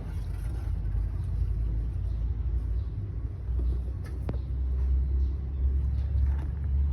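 A loud low rumble that fluctuates and grows stronger in the second half, with a single sharp click about four seconds in.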